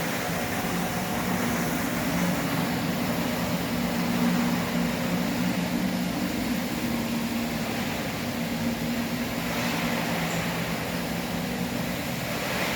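Floor-cleaning machine running steadily: a motor hum with a constant rush of air.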